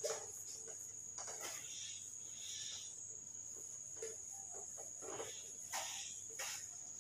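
Cloth duster rubbed across a whiteboard in a series of short, faint brushing strokes, over a steady high-pitched whine.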